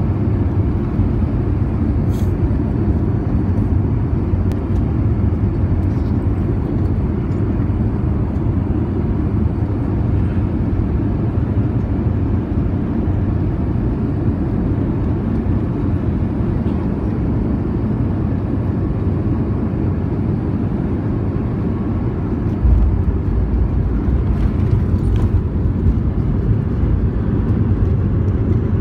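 Airbus A320 passenger cabin noise during landing: a steady low rumble of the engines and airflow, then about 22 seconds in a sudden rise in deep rumble as the wheels touch down and roll on the runway.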